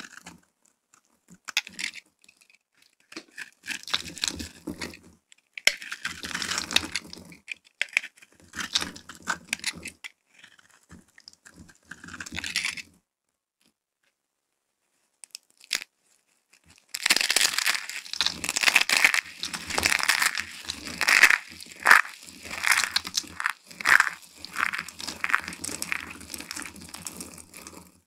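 Dry, brittle soap crackling and crunching, first as a bar is cut into thin strips with a blade, then as soap is pressed and crushed between the hands. Scattered crackles in the first half give way to a pause of a few seconds in the middle. After that comes dense crackling with sharper crunches about once a second.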